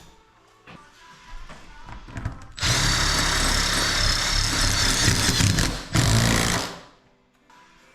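Power drill running in a long burst about two and a half seconds in, stopping for a moment and then running again briefly before it stops.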